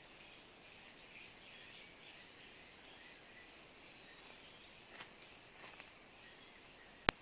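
Forest ambience with insects. A high, thin, even note sounds twice near the start, one long and one short. Near the end comes a single sharp click.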